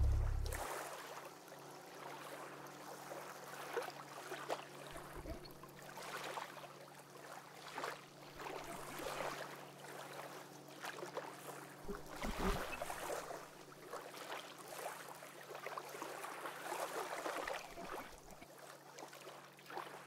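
A deep bass note dies away in the first second. After it comes a faint ambient drone: a steady low hum under irregular swells of hiss-like noise.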